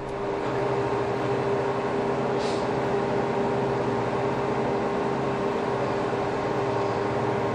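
Steady mechanical hum with a constant whine over it, unchanging throughout.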